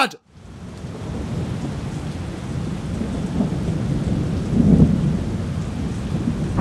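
Heavy rain pouring down, fading in over the first second and growing louder, with low rumbles of thunder swelling about two-thirds of the way through.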